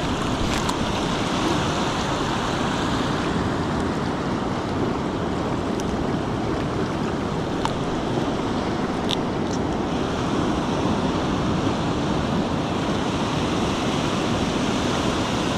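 Ocean surf washing steadily on the shore, with a few light ticks over it, the clearest about nine seconds in.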